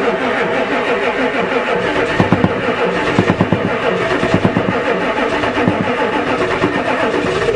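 Ford diesel truck engine cranking over on the starter in a cold start, glow plugs pre-heated, working to catch.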